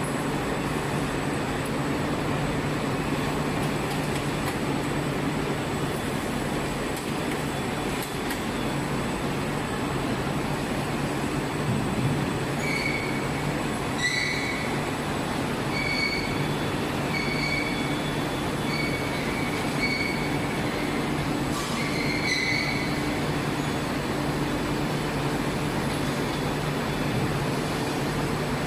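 Steady hum of factory machinery, with a run of short, high metal squeaks, about one a second, starting about a third of the way in and stopping some ten seconds later, from the steel rotomoulding mould frame being turned by hand on its arm.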